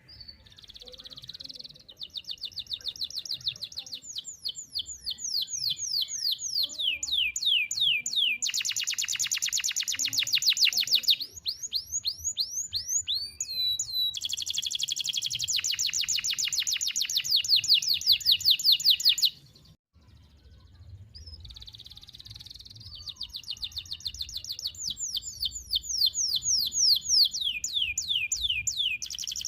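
Domestic canary singing a long, unbroken song of fast trills: quick runs of repeated, sharply sweeping high notes, changing pace from phrase to phrase. The song breaks off for about a second after roughly 19 seconds, then a second phrase begins.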